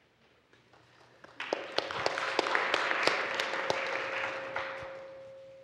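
Audience applauding. It starts about a second and a half in, builds quickly, then fades slowly away.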